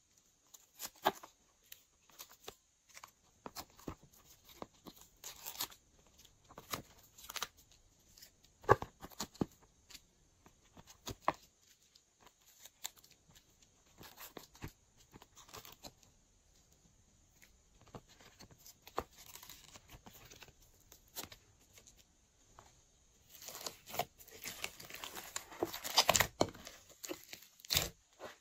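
Scattered soft clicks and taps of modelling-clay shapes being pressed out of a silicone mould and set down on slime. About five seconds before the end this gives way to a denser run of crackling and squishing as hands knead slime.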